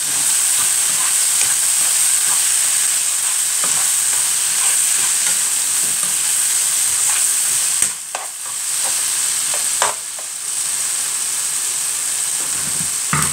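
Food sizzling as it fries in a pan while being stirred, the utensil scraping and clicking against the pan. Two sharper knocks about eight and ten seconds in, the sizzle dipping briefly after each.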